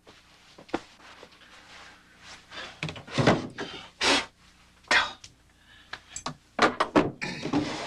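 Irregular knocks and thuds mixed with short rustling bursts, over a faint steady low hum.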